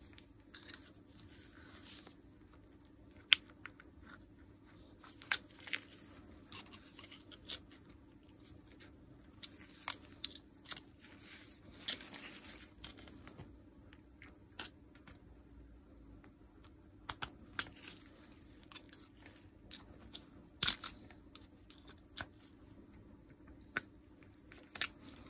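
Sparse small clicks and short scrapes of a hand tool working against a steel retaining ring inside a rotary hammer's barrel, lifting the ring. The clicks are sharp and isolated, with quiet stretches between.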